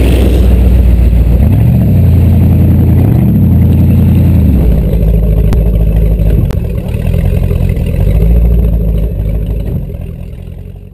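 Speedboat's V8 engine running loud, its pitch rising and falling about one and a half seconds in and again about three seconds in, then settling to a lower steady run. The sound fades out near the end.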